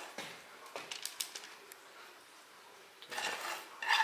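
A spatula clicking and scraping against a pan as thick molten sugar is pushed out onto baking paper, with a quiet stretch in the middle. Near the end there is a brief high-pitched sound, the loudest part.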